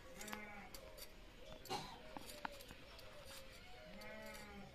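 Cauliflower being cut on a boti blade, giving a few sharp clicks and taps. An animal calls twice in the background, briefly at the start and longer near the end.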